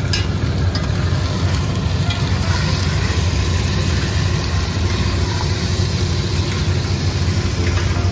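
Steady low drone of commercial kitchen equipment, with light sizzling and a metal spatula scraping as pieces of mutton are stirred and fried in salt and oil in a large copper pot.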